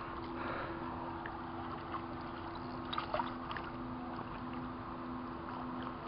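Faint splashing and water movement as a landing net is worked through lake water beside a hooked carp, with a few small ticks and splashes around the middle, over a steady hiss and a steady low hum.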